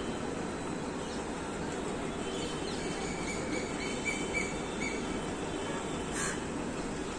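Steady outdoor background hum, with faint short chirps of small birds about three to five seconds in and a brief hiss about six seconds in.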